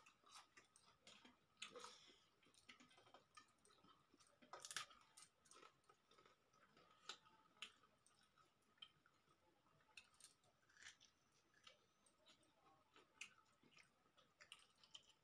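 Faint eating sounds from people eating rice and chicken curry by hand from steel plates: soft chewing and scattered small clicks and smacks. A faint steady high tone sounds underneath.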